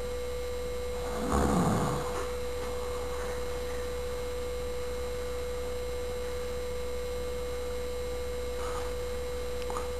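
Steady electrical whine at a single pitch over a low mains hum, a recording artefact. A brief muffled noise comes about a second in.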